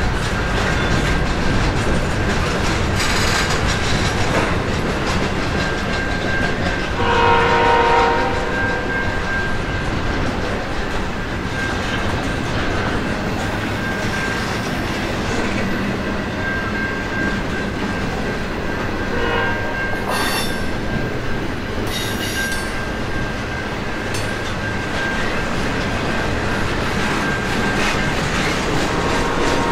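Freight train passing close by, with steady rolling noise and wheels clicking over the rail joints, a thin high squeal from the wheels, and a horn sounded for about a second and a half about seven seconds in.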